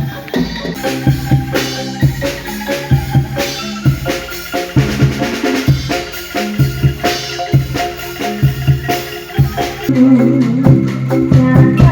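Music with a steady drum beat under a melody of short struck notes, growing louder and fuller about two seconds before the end.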